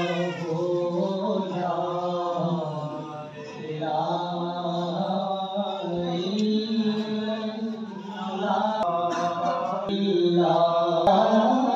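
Male chanting of a melodic devotional litany, with long held lines that rise and fall.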